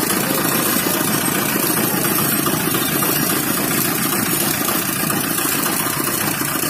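Motor-driven sugarcane juice press running steadily, its belt-driven steel rollers crushing cane stalks as they are fed through.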